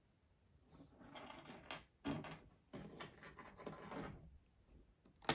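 Small plastic 4x4 Rubik's Cube pieces clicking and rattling as they are handled and fitted onto the cube, with one sharp click near the end.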